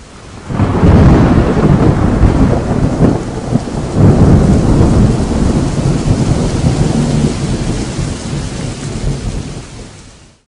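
Rain with a long, rumbling roll of thunder that swells twice, then slowly fades and cuts off abruptly near the end.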